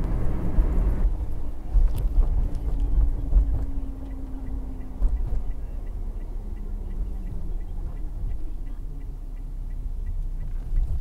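Car on the road, a steady low rumble of engine and tyres, louder for the first second. A faint regular ticking, two or three a second, runs through the second half.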